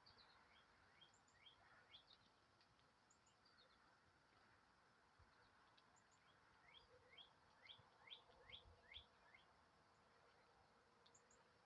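Faint small-bird chirping: scattered quick chirps, then a run of about eight louder ones in a row between about seven and nine seconds in, over a faint steady background hiss.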